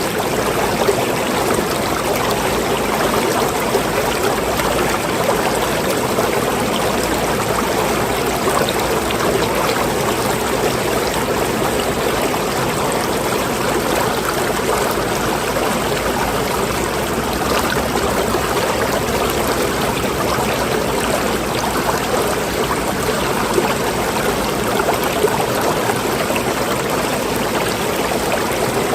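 Water running steadily in a continuous flowing, trickling rush with no pauses or changes.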